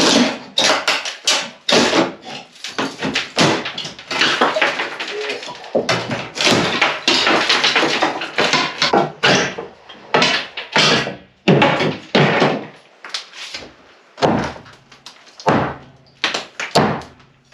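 Demolition of an old timber stud wall: irregular knocks and thuds as wooden uprights and laths are struck and worked loose overhead, with rougher stretches of scraping and rattling between the blows.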